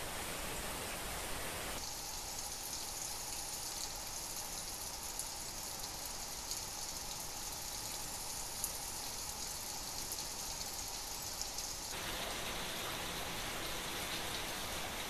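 Steady outdoor ambient hiss with no distinct source, its tone shifting abruptly about two seconds in and again near twelve seconds in; in the middle stretch it is thinner and more high-pitched.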